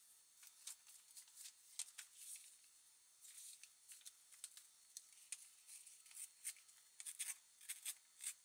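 Paper being torn by hand for a collage: quiet, short rips and crinkles coming in an irregular run, several a second at times.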